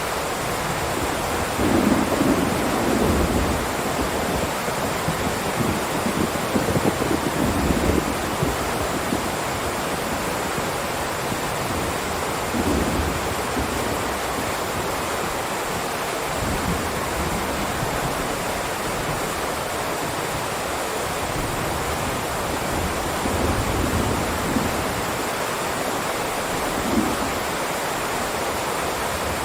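Heavy rain downpour, a steady dense hiss, with several brief low rumbles rising out of it, the strongest about two and seven seconds in.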